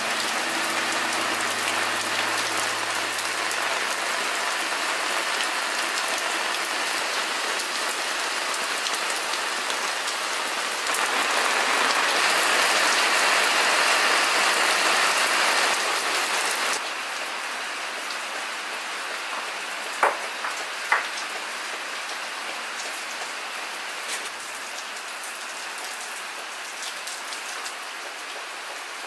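Steady rain falling, a constant hiss that grows louder for about six seconds midway and then drops back. Two short sharp clicks about a second apart, around two thirds of the way through.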